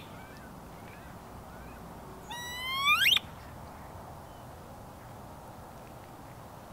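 A single rising, squealing wood duck whistle about two seconds in. It sweeps upward in pitch, grows louder for under a second and cuts off sharply.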